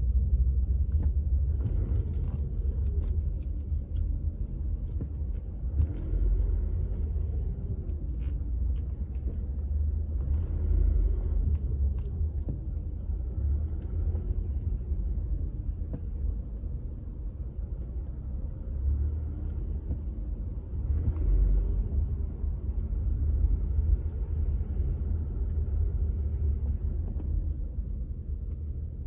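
Low, steady rumble of a car's engine and tyres heard from inside the cabin while creeping along in slow traffic, swelling briefly twice.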